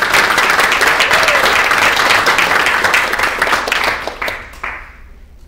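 Small seated audience applauding, a dense patter of many hands clapping that fades away about four and a half seconds in.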